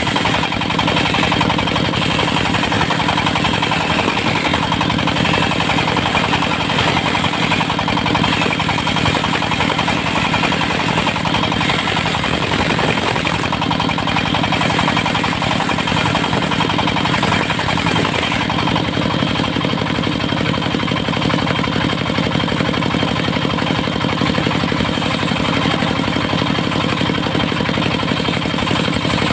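Diesel engine of a mobile circular sawmill running steadily at a constant speed, driving the circular saw blade.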